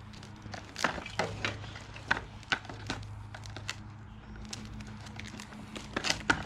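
Scattered light clicks and taps of the small parts of a pressure-washer slurry blaster kit being handled, over a steady low hum.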